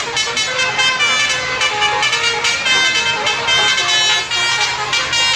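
Telolet horn, a multi-tone air horn, playing a melody of honked notes that step up and down in pitch without a break.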